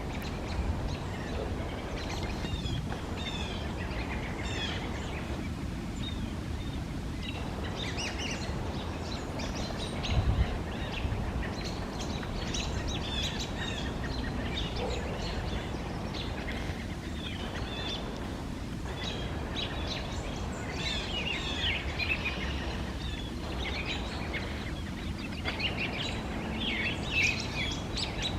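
Small birds chirping and calling in scattered clusters of short, high chirps over a steady low background rumble, with a brief low thump about ten seconds in.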